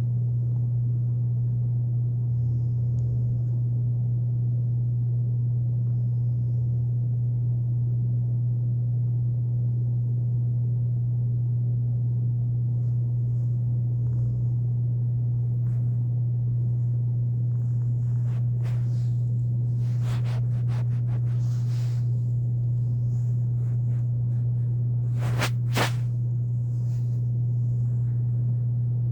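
Air conditioner running with a loud, steady low hum. A few faint clicks or rustles come in the second half, with a sharper double tick near the end.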